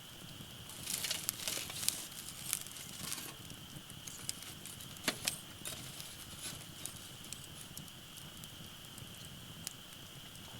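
Firewood crackling and popping as it burns in a Uniflame wood-grill fire pit: a quick run of snaps about a second in, then scattered single pops. A steady high-pitched drone runs underneath.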